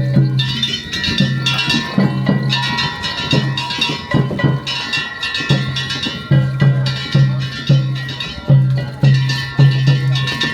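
Japanese festival float music (danjiri hayashi): a drum beaten in a steady rhythm about twice a second, with struck metal bells and higher sustained instrument tones over it.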